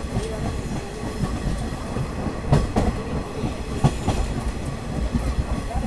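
KiHa 47 diesel railcar running along the track, heard through its open door: a steady rumble of engine and wheels, with sharp wheel knocks over the rail joints, the loudest about two and a half and four seconds in.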